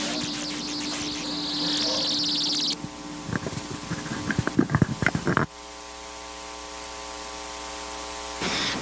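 A high buzzing hiss, then a run of irregular knocks and bumps of a microphone being handled, then a steady electrical hum from the open microphone line.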